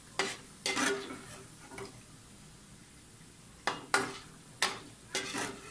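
A wire-mesh strainer knocks and scrapes against a metal frying pan as fried banana slices are scooped out of the oil. There are about seven sharp clanks, grouped in the first second and again in the last two seconds, each with a brief metallic ring, over a faint frying sizzle.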